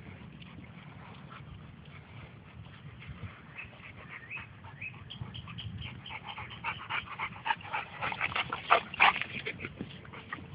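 Dogs yipping and whining as they play: a quick run of short, high, sharp sounds that starts about halfway through and is loudest near the end.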